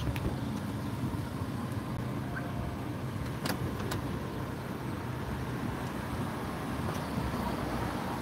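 Steady low rumble of a motor vehicle running, with two sharp clicks near the middle.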